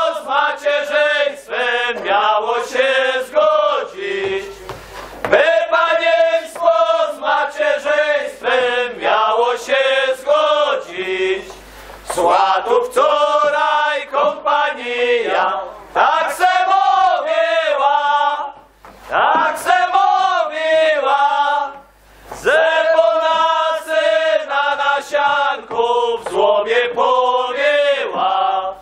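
A group of men singing a Polish Highlander Christmas carol (kolęda) together, in phrases with short pauses between them.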